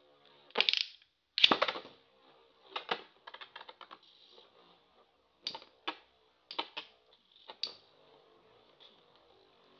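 Two metal Beyblade spinning tops clashing in a plastic stadium, giving sharp clacks at irregular intervals. There is a quick rattling run of small ticks around three to four seconds in, and a faint steady hum of spinning underneath.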